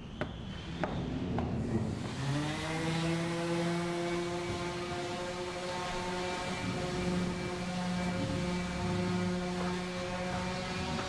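A few knocks, then about two seconds in a motor spins up with a short rise in pitch and runs at a steady pitch.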